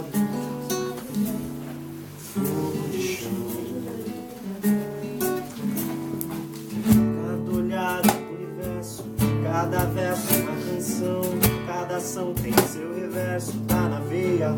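Instrumental passage of an acoustic song: acoustic guitar strummed and plucked. About halfway through, sharper, louder accented strokes come in.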